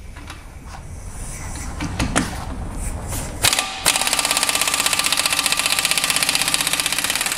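Pneumatic impact wrench hammering the front CV axle nut of a Chevrolet Cruze loose, a loud, steady, very rapid rattle that starts about halfway in. Before it, a quieter low rumble and a couple of clicks.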